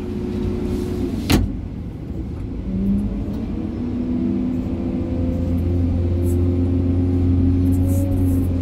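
New hydraulic excavator's diesel engine and hydraulics, heard from inside the cab while the bucket digs. The engine note deepens and grows louder about five seconds in as the hydraulics take the load. There is a single sharp click a little over a second in.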